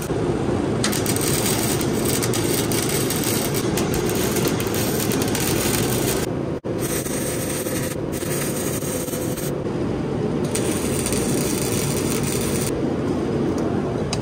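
Flux-core MIG welding arc crackling and sputtering as short stitch welds are laid on thin steel. The arc starts and stops a few times.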